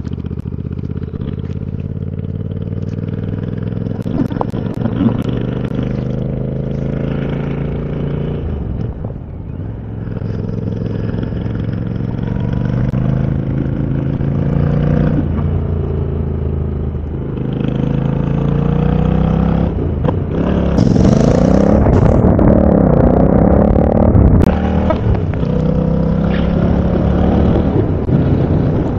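Royal Enfield Interceptor 650's parallel-twin engine breathing through Mass Hot Rod aftermarket exhausts, heard onboard while riding. Its pitch climbs in several long pulls and drops back between them, as at gear changes or easing off the throttle, and it is loudest in the second half.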